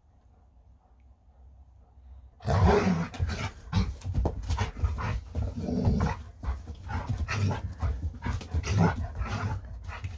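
Alaskan malamute growling and vocalizing in excited play as it spins after its tail, starting loudly about two and a half seconds in after a near-quiet start.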